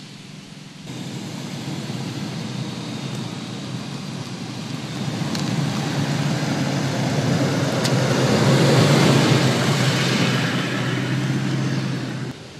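Toyota Land Cruiser with its 5.7-litre V8 driving past on a dirt trail. The engine and the tyres on loose dirt grow louder to a peak about nine seconds in, then ease off. Two sharp clicks, stones under the tyres, come about five and eight seconds in.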